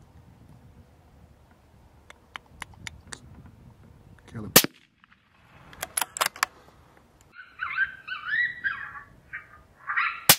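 Gunshots: one loud shot about halfway through, three quick sharp cracks a second or so later, and another shot at the very end. Between them an animal yelps in high cries that rise and fall for about three seconds.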